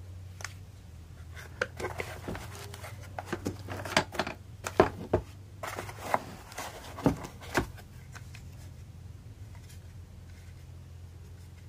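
Packaging and parts being handled during the unboxing of a cordless drill: a run of sharp clicks and knocks, most of them between about two and eight seconds in, over a steady low hum.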